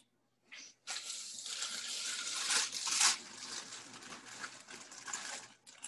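Thin plastic produce bag crinkling and rustling as a bunch of water spinach is lifted and handled in it. It starts about a second in, is loudest around the middle, and grows softer toward the end.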